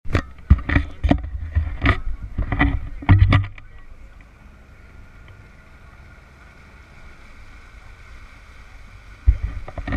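Tour catamaran running on the river, a steady hum with faint whining tones, broken by a string of loud knocks and rumbles during the first three and a half seconds and again near the end.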